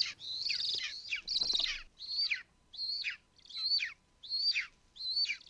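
Golden eagle nestling begging: a series of thin, high-pitched calls about one and a half a second, each sliding downward in pitch.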